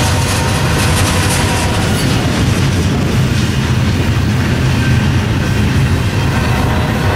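Double-stack intermodal freight train's well cars rolling past on the near track: a loud, steady rumble of steel wheels on the rails.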